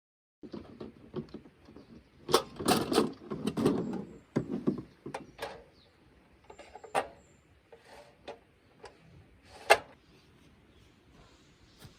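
Scattered clicks, knocks and rustling of objects being handled, with a run of handling noise about two to four seconds in and sharp single knocks near seven and ten seconds.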